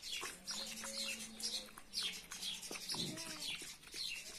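Small birds chirping over and over in short falling calls, with faint ticks of puppies lapping from a food bowl. A low drawn-out tone runs through the first half, and a few brief low calls come about three seconds in.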